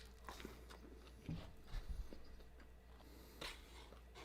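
Faint chewing of a mouthful of food, with a few soft wet mouth clicks.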